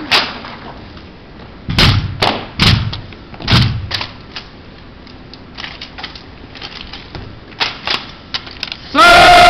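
Drill-team rifles being slapped, spun and struck against the floor by hand: a run of sharp claps and heavier thuds in uneven rhythm. Near the end a loud shouted call cuts in.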